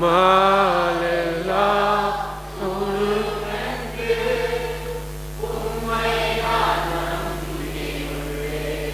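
Slow worship singing: voices holding long, drawn-out notes over a steady low held tone.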